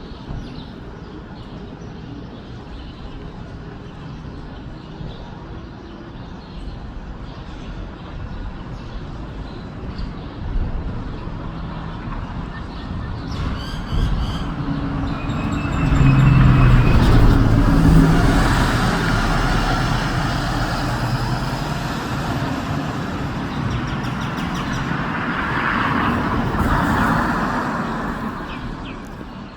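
Road traffic noise. A vehicle passes close about halfway through: it grows loudest, then slowly fades away.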